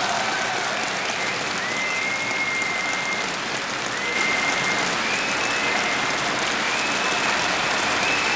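Audience applauding steadily, with several long, high, steady tones heard over the clapping.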